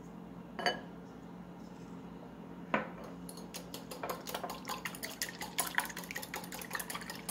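Two light clinks, then from about three seconds in a wire whisk beating egg and milk in a glass bowl: a fast run of clicks of the wires on the glass, with the liquid sloshing.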